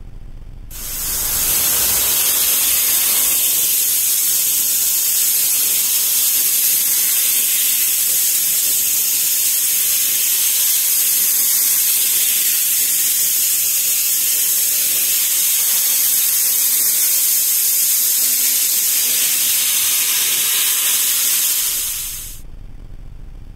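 A loud, steady hiss like rushing air, fading in about a second in and fading out near the end.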